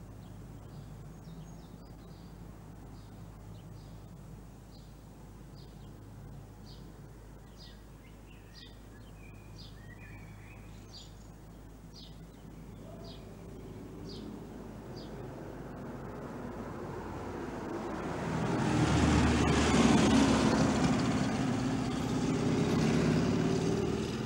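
Quiet street ambience with a small bird chirping over and over in short, regular notes, then a car approaching and driving past close by, loudest about three quarters of the way through and staying loud until shortly before the end.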